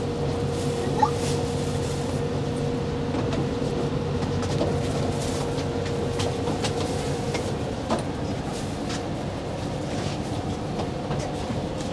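Steady drone of a passenger ferry's engines heard on board, a constant hum with a couple of short clicks, one about a second in and one near eight seconds.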